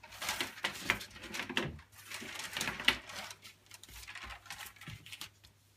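A sheet of paper being handled and folded on a table, rustling and crinkling in irregular bursts for about three seconds, then growing quieter.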